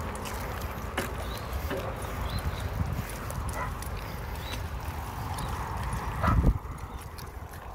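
Mountain bike rolling over dirt and gravel with two German Shorthaired pointers trotting alongside on chain leashes: steady rolling and wind rumble with scattered clicks and jingles from the leash chains and collar tags. A louder bump about six and a half seconds in.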